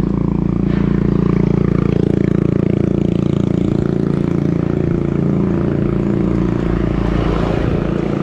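A motor vehicle engine running steadily over wind and road noise while riding.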